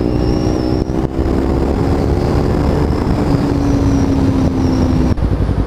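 Kawasaki Ninja 300's parallel-twin engine running through an Akrapovic slip-on exhaust with its noise-killer baffle removed, giving a deep note at steady revs while riding. The pitch sags slightly and then drops off about five seconds in.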